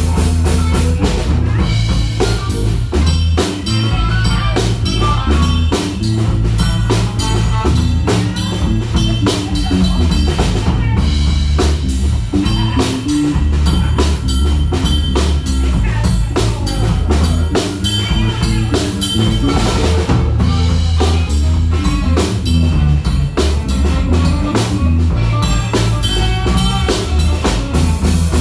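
Live rock band playing an instrumental passage: drum kit with a steady beat, electric bass and electric guitar, no vocals.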